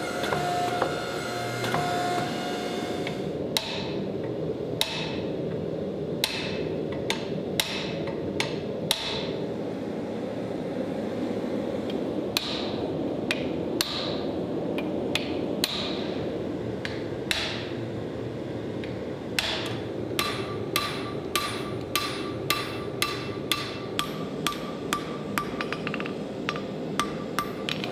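Hand hammer striking hot steel on an anvil while forging: single blows a second or so apart, then from about two-thirds of the way in a quicker run of ringing blows, about two a second. A steady rushing noise runs underneath.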